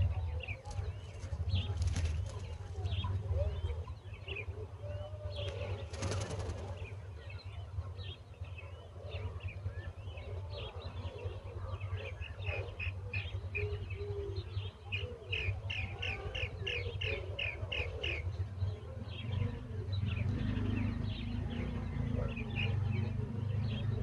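Nestling birds cheeping to beg for food: many short, high chirps, with a quick run of about three cheeps a second about two-thirds of the way through. A couple of brief rustles near the start and a steady low rumble underneath.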